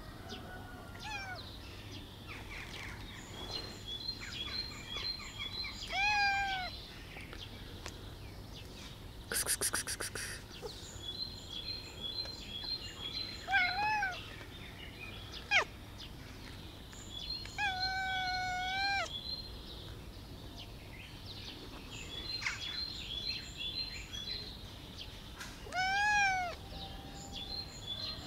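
Long-haired black cat meowing, about five meows spread out, one near the middle drawn out longer and level. Small birds chirp repeatedly in the background, and a short rattling burst sounds about ten seconds in.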